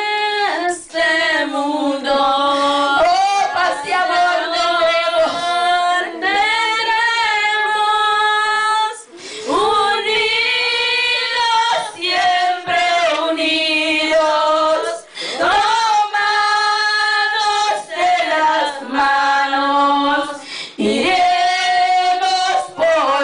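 A woman singing a worship song solo into a microphone, with long held notes.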